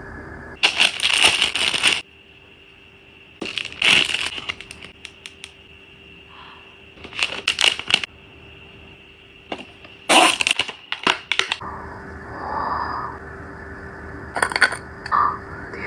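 Clear plastic cosmetic packaging crinkling as it is handled and peeled open, in five separate bursts of about a second each.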